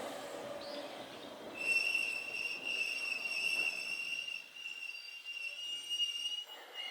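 Wheels of a former Tokyu electric train on the Ueda Electric Railway squealing on the rails: a steady high squeal sets in about a second and a half in and holds, over a train rumble that fades away.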